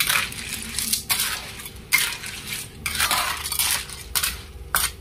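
Spatula stirring sea snails in a wok of sauce: the shells clatter and scrape against the pan in repeated strokes, about one to two a second.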